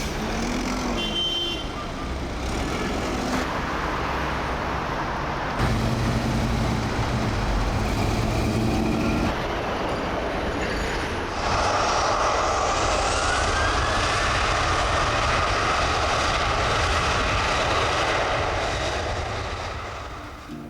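Road traffic noise in several short clips joined by abrupt cuts. About halfway through a louder steady roar with a slowly rising whine takes over, then fades out near the end.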